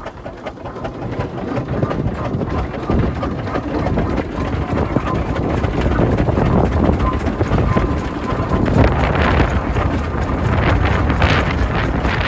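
Early-1900s Ruston Proctor single-cylinder steam traction engine running in steam, steady throughout, with wind buffeting the microphone.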